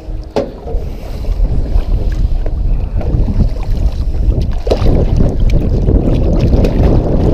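Wind buffeting the microphone over water slapping against the side of a boat, with a few sharp splashes from a hooked ray at the surface.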